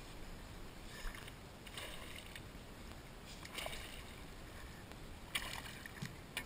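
Fly line being stripped by hand in short pulls: a few soft swishes over faint water lapping against the boat.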